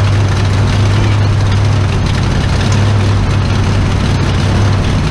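1974 Ford F-350's 390 V8 idling steadily on its first run in years. It has an exhaust manifold leak that a helper calls serious.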